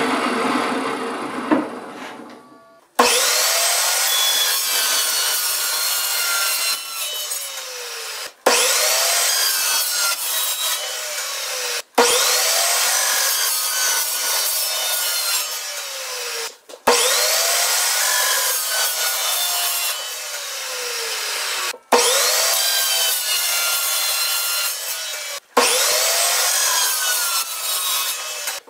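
Cold cut saw's toothed blade cutting through steel stock, sped up to double speed. It runs as a string of about six cuts, each starting abruptly after a brief break.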